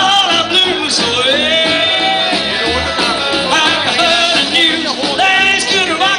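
Live rockabilly band playing: upright bass, acoustic rhythm guitar and electric guitar, with a bending melodic line over the top.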